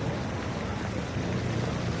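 Recorded city street ambience, sold as a 1930s city, with a steady low traffic rumble and an even hiss over it.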